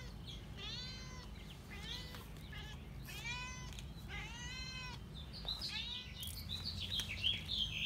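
Two-week-old kittens mewing, high-pitched calls repeated about once a second, with faster, higher squeaks in the last couple of seconds.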